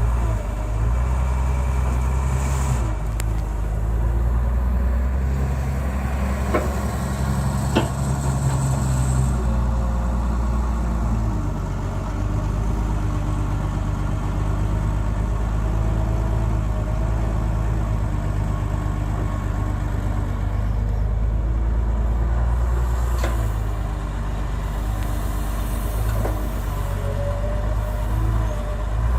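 Excavator's diesel engine running steadily under load, with a few sharp metallic clanks.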